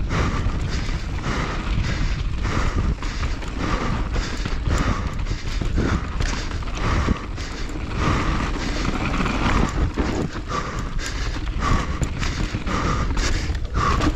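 Mountain bike descending a rough, loose dirt trail at race pace: constant low rumble of wind and tyres, with irregular knocks and rattles as the bike hits bumps and ruts.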